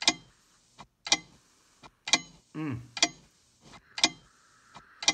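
A clock ticking about once a second, with a fainter tock between the ticks. About halfway through, a brief sound drops steeply in pitch, and near the end a faint steady hiss comes in.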